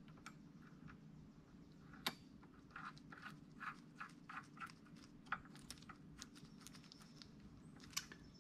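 Faint clicks and light taps from small-parts handling: a plastic assembly-lube packet being worked at a connecting rod's bolts. A few taps stand out, about two seconds in, about five seconds in and near the end, over a low steady hum.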